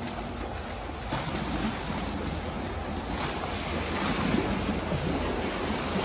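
Steady rushing outdoor noise, mostly wind buffeting the microphone, swelling slightly now and then.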